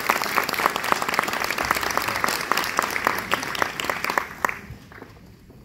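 Audience applauding with many hands clapping, thinning out to a few last claps and dying away about four and a half seconds in.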